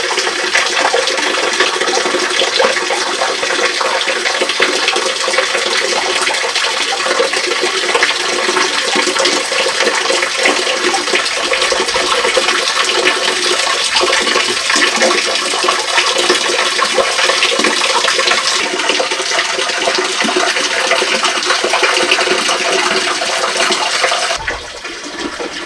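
Small waterfall splashing steadily into a clear pool at its foot, a constant rush of falling water. Near the end it becomes quieter and duller, with a few low thumps.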